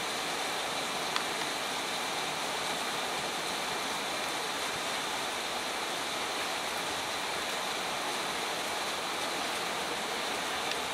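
Steady, even hiss of rain falling, with one faint tick about a second in.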